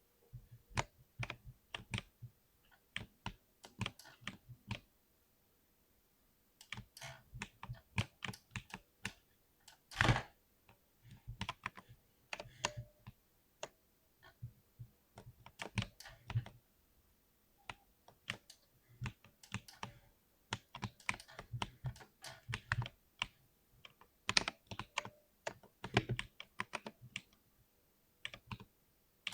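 Typing on a mechanical keyboard with Cherry MX switches: irregular bursts of key clicks broken by short pauses, with one especially loud keystroke about ten seconds in.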